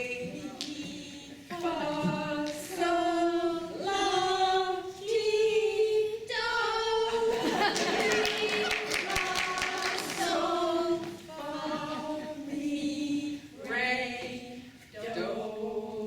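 Women's choir singing a cappella, held notes in short phrases, with hand claps through the middle of the passage.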